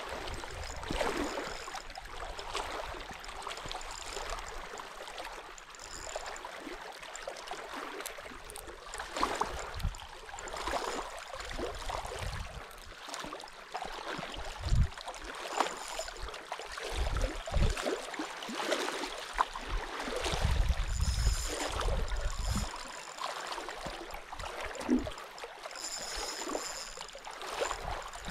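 Water lapping and gurgling, with irregular low thumps and rumbles that are thickest in the middle stretch.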